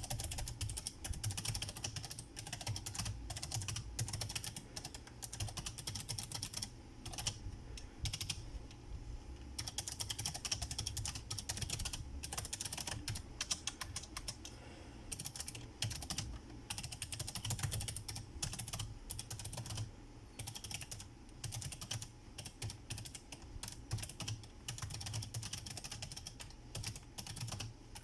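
Typing on a Razer Ornata Chroma mecha-membrane keyboard: a fast, continuous stream of key clicks, with a couple of short pauses.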